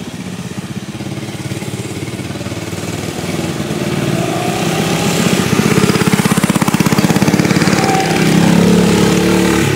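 Mini bike's small engine running, getting louder about halfway through, with a fast even pulsing.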